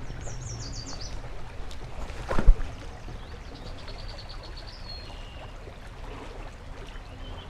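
Shallow river water flowing over rocks, a steady rushing, with a brief loud thump about two and a half seconds in. Faint high chirping notes come near the start and again in the middle.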